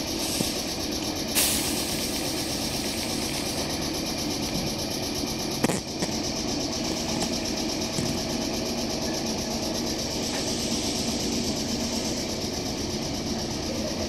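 Meitetsu electric commuter train standing at the platform with its equipment running, then pulling away in the second half. A sharp knock comes about a second and a half in and another at about six seconds.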